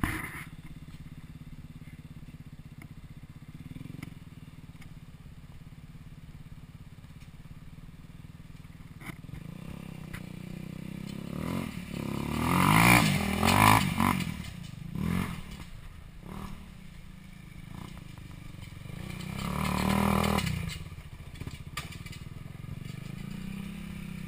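Small quad bike engines running with a steady low drone, swelling with revving about halfway through and again later as the quads ride close.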